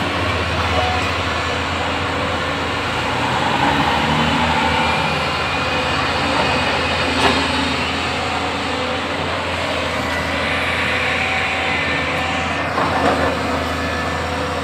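JCB backhoe loader's diesel engine running steadily under load, with a single sharp knock about seven seconds in and a short clatter near the end.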